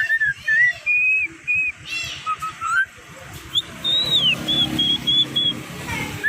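Javan myna (jalak kebo) singing: a run of short, clear whistled notes and slurred glides, some rising and some falling. A low hum rises underneath in the second half.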